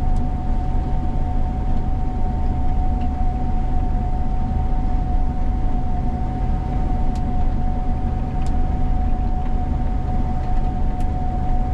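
Gleaner combine running steadily: a deep, even rumble with a steady high whine over it.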